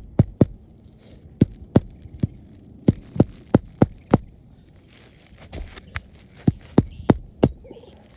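Hammer driving roofing nails into asphalt shingles by hand: about fifteen sharp strikes in short runs of two to five blows, with brief pauses between nails.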